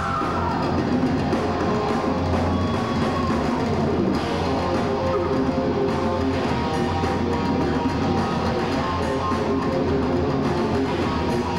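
Heavy metal band playing live: electric guitar, bass guitar and drum kit.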